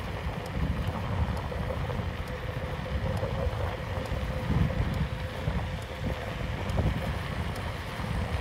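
Wind buffeting the microphone during travel along a freshly laid asphalt road: a steady, gusty low rumble with a faint steady hum above it.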